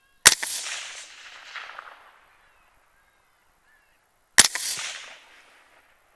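Two gunshots about four seconds apart, each a sharp crack followed by a long rolling echo that dies away over a second or two.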